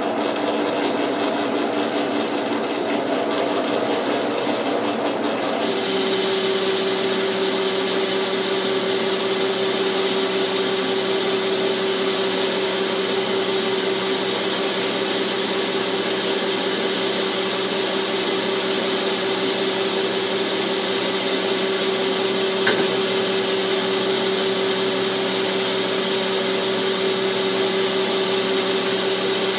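Metal lathe turning the outside diameter of a steel hub with a carbide insert tool, running steadily. About six seconds in, a steady hiss and a steady tone join the running noise as the cut takes hold and hot blue chips come off.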